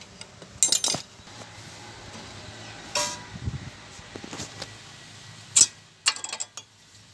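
Metal clinks and clatters as a Toyota Etios front brake caliper and its worn-down pads are pried off and pulled out of the caliper bracket. They come in three short clusters: about half a second in, around three seconds, and toward the end.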